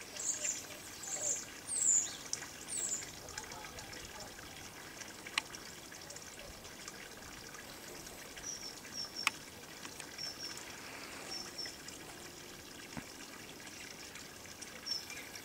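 Small birds calling with short high chirps, a quick run of them in the first few seconds and then in pairs from about eight seconds in, over a steady hiss. Two sharp single clicks come about five and nine seconds in.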